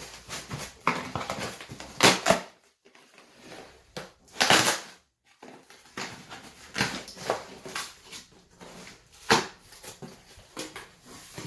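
Packaging being handled while a box is unpacked: irregular rustling and scraping of cardboard and packing material, with louder bursts about two seconds in, at four and a half seconds, and about nine seconds in.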